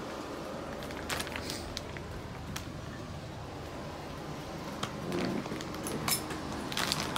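Scattered light clicks and rustles from a phone being handled and moved around, over a steady background hum.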